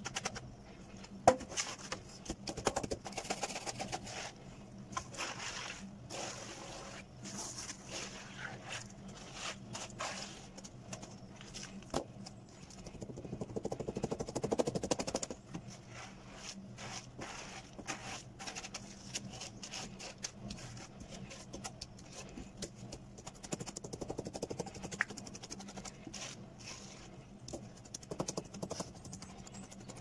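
A timber screed board being worked back and forth across wet concrete to level it, scraping over the mix with irregular knocks and clicks. A sharp knock comes about a second in, and there is a longer, louder spell of scraping about halfway through.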